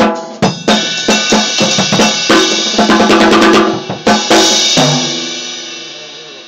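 Acoustic drum kit played with sticks: a fast run of bass drum, snare and tom hits with cymbals, stopping abruptly near the end and leaving the cymbals ringing down.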